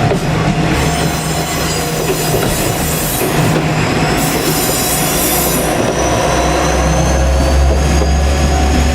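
Two-car JR Kyushu KiHa 47 diesel railcar set running on the track: engine hum and wheel-on-rail noise. A high whine rises in pitch through the second half while the low hum grows stronger.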